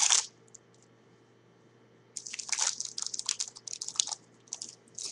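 A trading card pack's wrapper being crinkled and torn open by hand and the cards slid out: a short crinkle at the start, then a run of irregular crinkling and tearing from about two seconds in, with a couple of last rustles near the end.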